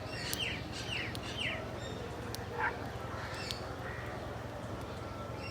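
Birds calling: three short falling calls in quick succession within the first second and a half, then a single louder upward call about midway, over a steady low hum.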